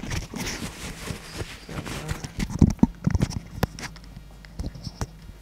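Kitchen prep handling noise: rustling and light clatter, then a quick run of sharp knocks and clicks from bowls and utensils on the counter about two and a half to three and a half seconds in, with a couple of single clicks near the end.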